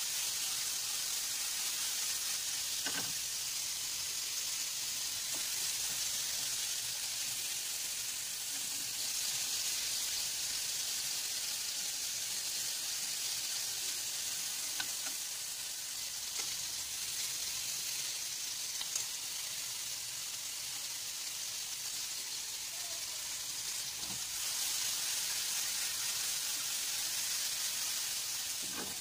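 Longganisa sausages frying in a pan: a steady sizzle with an occasional faint pop.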